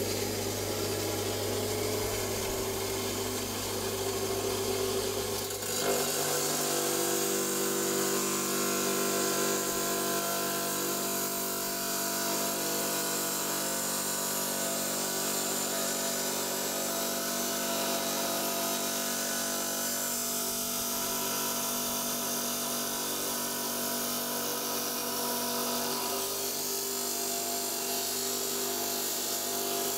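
Electric rock saw running steadily as it cuts through an agate nodule. Its tone changes about six seconds in and again near the end.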